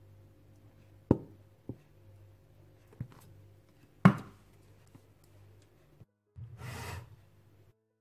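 A few sharp knocks and clinks of containers being handled and set down on a kitchen counter, the loudest about four seconds in, over a low steady hum. About six and a half seconds in comes a second-long rustling scrape.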